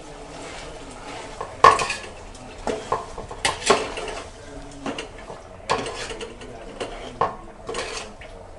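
A metal spoon stirring chicken and masala in a cooking pot, knocking and scraping against the pot's sides and rim in about a dozen irregular clinks.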